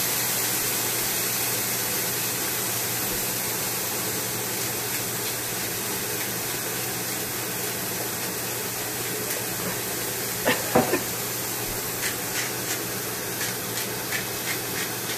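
Black beans and garlic sizzling steadily in olive oil in a frying pan, a hiss that slowly fades. A short clatter comes about ten seconds in, and light clicks follow near the end.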